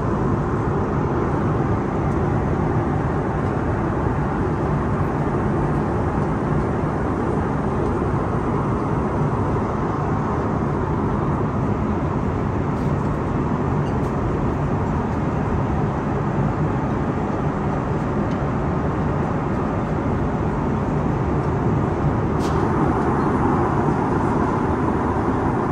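Steady engine and airflow rumble inside the cabin of a Swiss Airbus A340 in motion.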